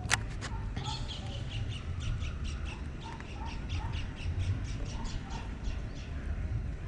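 A bird calling in a rapid series of short notes, about three to four a second, which fades out near the end. A steady low rumble runs underneath, and there is a single sharp click at the very start.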